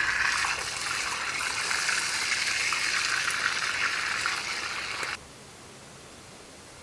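Pot of liquid boiling hard over an open fire, giving off heavy steam with a steady bubbling hiss that cuts off sharply about five seconds in.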